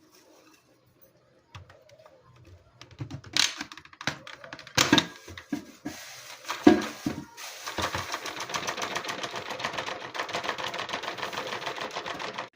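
Plastic clicks and knocks from handling a Dyson V8 cordless stick vacuum and its dust bin, followed about halfway through by a fast, even rattling that lasts about five seconds.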